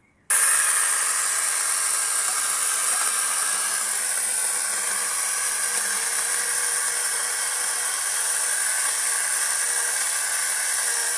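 Kamolee 8-inch brushless electric mini chainsaw switched on, its motor and chain running at a steady high-pitched whir with a hiss. It starts suddenly about a third of a second in and holds an even pitch and level.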